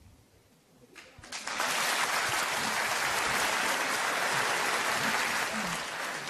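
Audience applauding, starting after a short quiet about a second in, holding steady and fading near the end.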